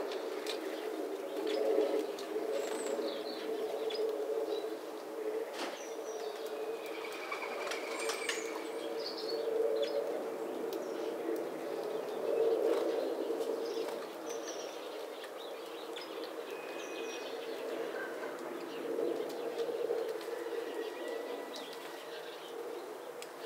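Great tits flitting to and from a feeder: brief wing flutters and small clicks, with scattered short high chirps and a few thin whistled notes over a steady low hum.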